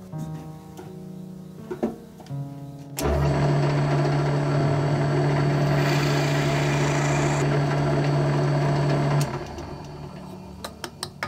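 Benchtop drill press starts abruptly about three seconds in and runs for about six seconds with a steady hum, its twist bit boring a hole into a small black block, then stops. Background music plays before and after.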